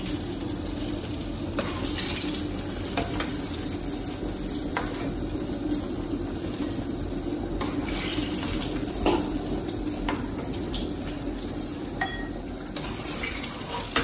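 Small whole brinjals (eggplants) deep-frying in hot oil in a wok, a steady sizzle and bubbling. A metal slotted spoon clinks against the pan now and then as they are scooped out, the sharpest knock about nine seconds in.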